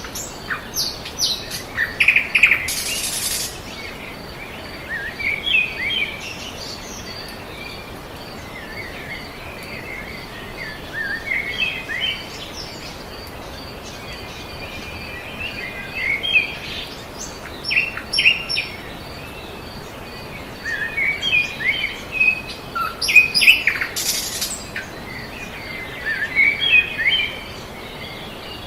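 Songbirds chirping and trilling in short scattered calls over a steady background hiss.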